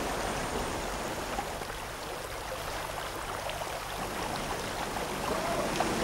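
Steady rushing of a stream's flowing water, with a few faint ticks over it.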